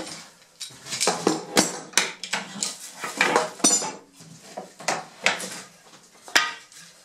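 A steel screw clamp being loosened and wooden boards lifted and shifted on a workbench: a string of irregular clicks, clatters and wooden knocks, with a brief metallic ring about halfway through.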